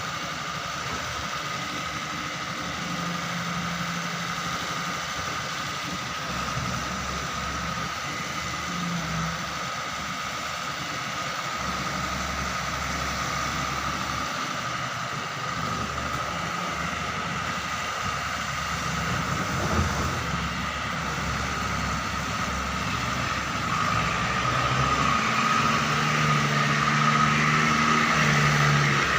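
Doosan 140 wheel excavator's diesel engine running steadily with a thin high whine over it, and a single knock partway through. Near the end it grows louder as the engine works harder.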